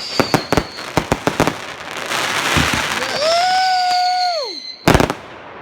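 Fireworks going off: a rapid string of sharp pops and bangs, then a stretch of hissing crackle and a drawn-out whistling tone that drops away, followed by a loud bang near the end.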